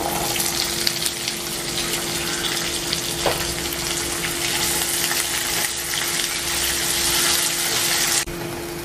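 Cut onions sizzling as they fry in hot oil in a pan, a dense steady hiss that drops off sharply near the end.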